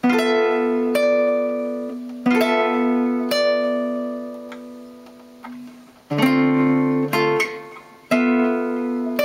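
Nylon-string cutaway classical guitar played fingerstyle in chord-melody style, moving from a D minor chord to a G9, with a melody note on top. Chords are plucked about once a second at first, then left to ring and fade for a couple of seconds, and three more chords are plucked near the end.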